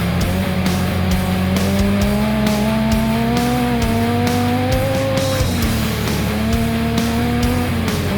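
Off-road race car engine running hard, its pitch climbing slowly, dropping about five and a half seconds in, then climbing again, with background music with a steady beat over it.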